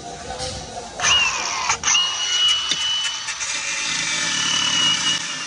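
Milwaukee angle grinder cutting into a car's steel body panel, throwing sparks. It comes in loud about a second in with a high whine that sags as the disc bites, then runs on steadily with a brief drop in load partway through.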